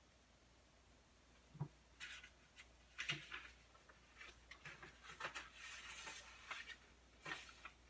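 Loose sheets of paper being handled, lifted and turned over on a tabletop: a soft thump about a second and a half in, then a run of crisp paper rustles and crinkles.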